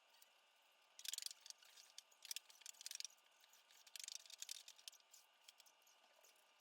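Three short, faint bursts of scratchy scrubbing on a surface, with a few light clicks.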